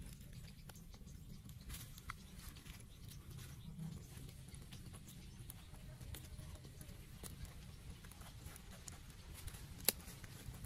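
Charcoal fire crackling under a whole chicken roasting on a stick frame: scattered light crackles and ticks over a low steady rumble, with one sharper crack near the end.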